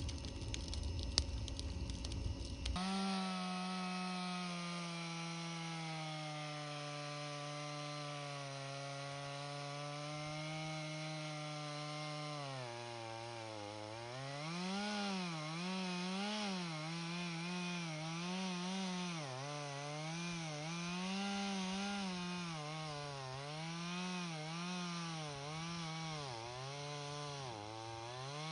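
Two-stroke chainsaw cutting oak. After a noisy first few seconds with sharp clicks, it settles into a steady high-speed note. About halfway through, its pitch starts rising and falling roughly once a second as the chain works into the wood.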